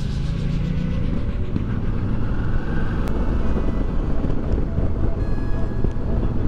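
Motorcycle on the move, its engine running at a steady speed under a constant rush of road and wind noise.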